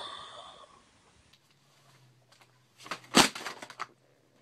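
A short run of knocks and clatters from a cat moving over a cluttered shelf of books and boxes, with one sharp knock about three seconds in. A low steady hum runs underneath.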